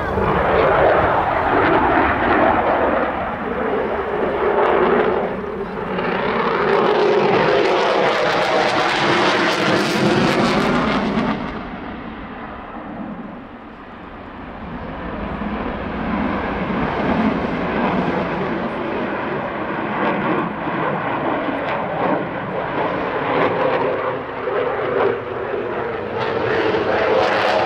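Jet noise from an RAF Eurofighter Typhoon FGR4's twin EJ200 turbofan engines as the fighter manoeuvres overhead, with the pitch sweeping up and down as it passes. The sound is strongest for about the first eleven seconds, then drops off sharply, dips to its quietest a couple of seconds later, and builds back up as the jet comes round again.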